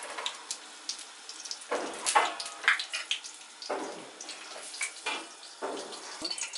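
Kitchen tap running into a sink in short, irregular splashes, as when food or utensils are rinsed under the stream.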